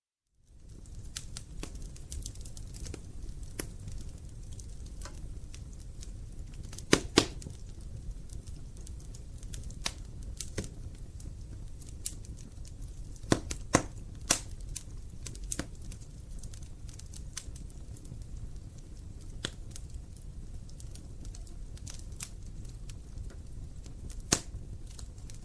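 Wood fire crackling in a fireplace: a steady low rumble of burning logs with scattered sharp pops and snaps. The loudest pops come in quick pairs about seven seconds in and around thirteen to fourteen seconds in, with another near the end. The sound comes in out of a brief silent gap at the very start.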